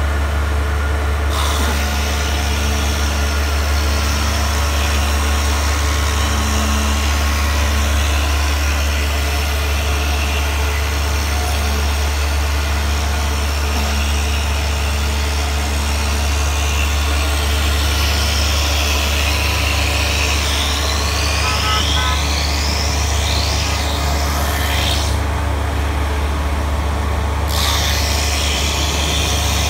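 Broom-handle rounding machine running steadily, its electric motor giving a constant low hum while the rollers feed a wooden rod through the cutter head, which shaves it round with a hiss. A few rising whines come about two-thirds of the way in.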